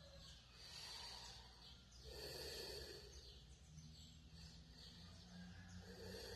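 A person snoring in their sleep: faint, rasping breaths that come every second or two, some stronger than others.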